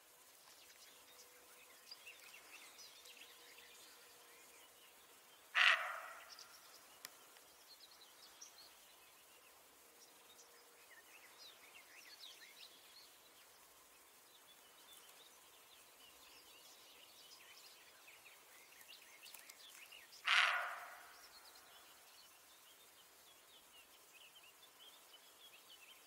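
Roe deer barking twice, about fifteen seconds apart, each a single short bark that trails off quickly. Faint bird chirps in the background.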